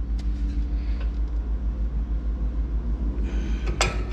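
A steady low rumble throughout, with one light metallic clink of a tool on metal hardware near the end.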